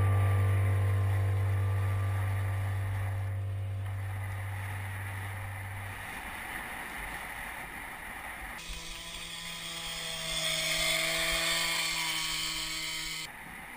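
A low held music note fading out, then steady wind rushing over a helmet-mounted action camera's microphone with the noise of bicycle tyres rolling on the road; after a cut a little past the middle the hiss gets brighter as the bike rolls over loose gravel.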